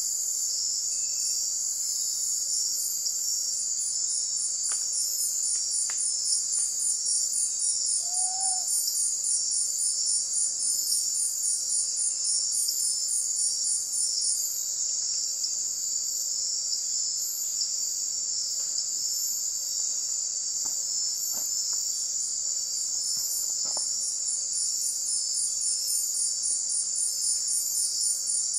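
Night insect chorus of crickets and the like: a steady high-pitched drone, with a faster pulsing trill above it that stops about halfway through and starts again near the end.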